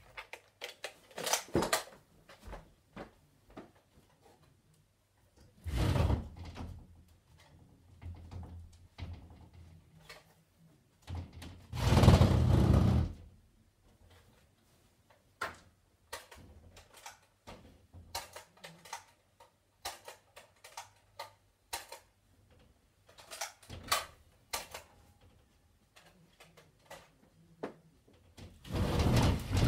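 Someone moving about and handling things in a small room: scattered clicks and knocks, with three louder sounds each about a second long, about six seconds in, about twelve seconds in and near the end.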